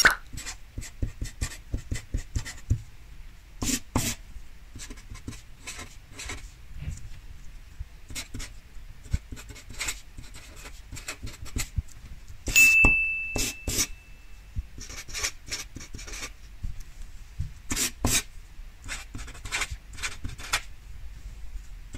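Felt-tip permanent marker scratching on paper in quick, irregular strokes as wrong answers are crossed out and corrections written. About halfway through comes a single high ding that rings for about a second and a half, the loudest sound.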